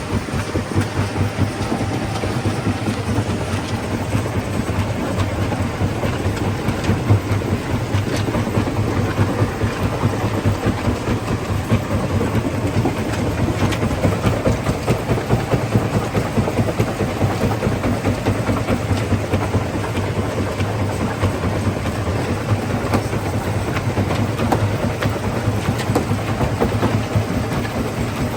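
Stone crushing plant running: a steady low mechanical hum under a continuous dense clatter of rock moving through the machinery.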